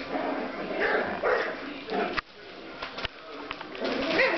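Seven-week-old bichon frise puppies giving short high yips and small barks, one call around a second in and another near the end, with a couple of sharp clicks in between.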